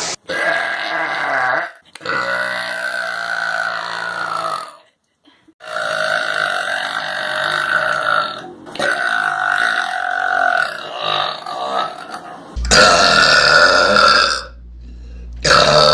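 A string of long, drawn-out burps, about six in a row with short pauses between them. The last two are louder.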